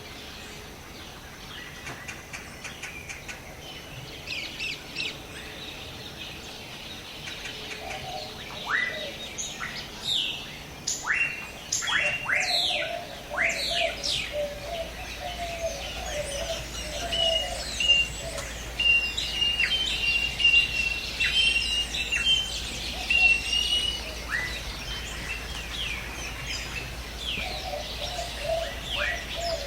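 Several wild birds calling together over a steady background hiss. Quick downward-sweeping whistles cluster in the middle, a low warbling call comes twice, and a rapid chirping trill runs for several seconds.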